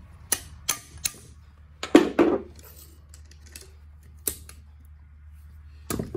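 Sharp metal taps and clinks from a hammer and a C-clamp valve spring compressor working the valves of a Case 188D cylinder head: three quick taps, then a louder jangling cluster about two seconds in and more single clinks later, the sound of freeing stuck valve spring retainers and moving the compressor to the next valve.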